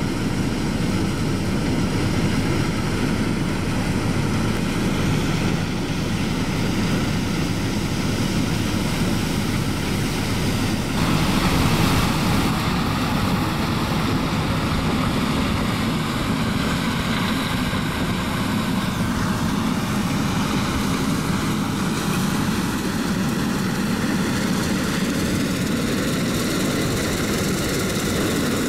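Claas Lexion 460 combine harvester running at working speed while cutting oilseed rape: a steady drone of engine and threshing machinery. It is loudest a little before halfway, as the combine passes close.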